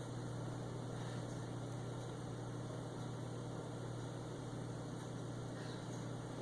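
A steady low electrical-style hum with a faint even hiss, unchanging throughout.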